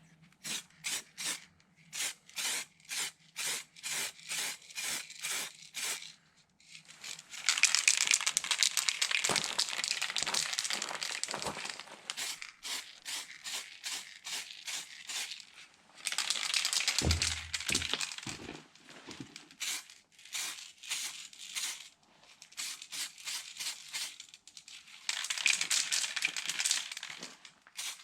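Aerosol spray can spraying lacquer: first a run of short hissing bursts, about two a second, then longer hissing passes of several seconds each.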